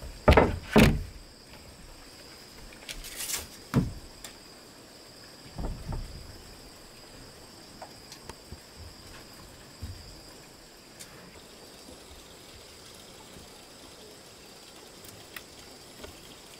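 A few separate knocks and thumps, the two loudest in the first second, then fainter scattered taps, over a faint steady high-pitched tone.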